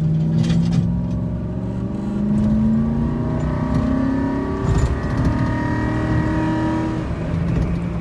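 2008 Ford F-150 engine under hard acceleration, its note climbing for several seconds before it drops with a knock about halfway through, then climbing and dropping again near the end. The revs keep rising without an upshift: the worn, 320,000-mile automatic transmission is slow to shift and kicks when it does.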